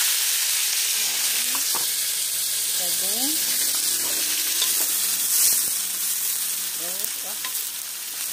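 Scraped corn kernels and garlic frying in hot oil, sizzling steadily, stirred with a spatula that clicks against the pan now and then; the sizzle eases off a little near the end.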